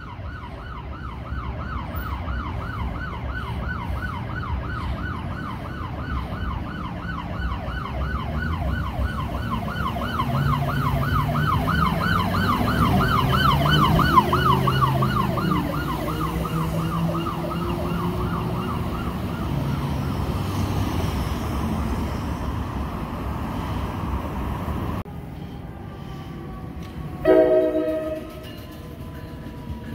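Emergency vehicle's electronic siren in rapid yelp, rising and falling about three times a second, with engine noise underneath. It grows loudest as the vehicle passes about halfway through, then fades away. Near the end comes a short, loud horn blast.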